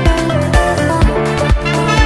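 Background instrumental electronic dance music with a steady kick drum about twice a second under sustained synth tones.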